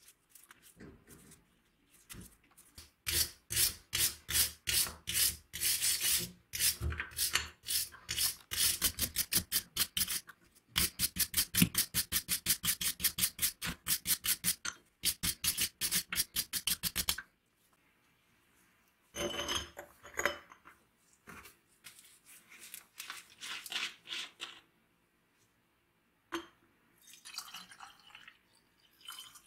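Rusted steel pliers clamped in a vise being scraped by hand to remove rust: fast, even rasping strokes, about three to five a second, in two long runs with a short break, then softer, scattered scrapes later on.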